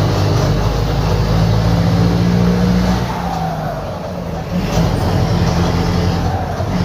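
Mercedes-Benz OF-1721 bus's four-cylinder diesel engine running loud under load through a holed exhaust. The engine eases off about three seconds in, then pulls hard again about a second and a half later.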